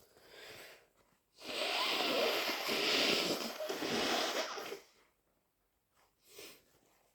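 A person blowing a congested, snotty nose hard in one long wet blow lasting about three seconds, starting about a second and a half in. Short, quieter sounds come just before it and near the end.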